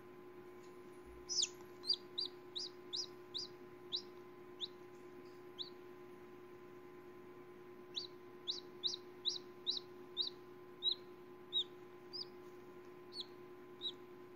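Chick peeping from inside a pipped, cracking egg during hatching. Short, high, falling peeps come in two runs, two or three a second, over a faint steady hum.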